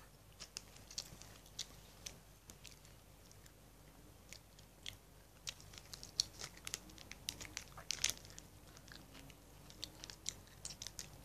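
Crunchy keropok crackers being bitten and chewed: faint, irregular crunches.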